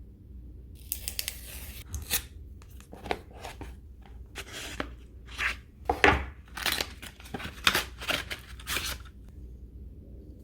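A smartphone box being opened by hand: a quick run of short tearing, scraping and clicking sounds from its paper packaging, lasting until about nine seconds in.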